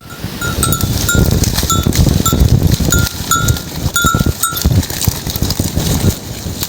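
A small bell worn by a grazing goat clanking over and over, about two to three strokes a second, stopping about four and a half seconds in, over a low rough rustling of the animals moving.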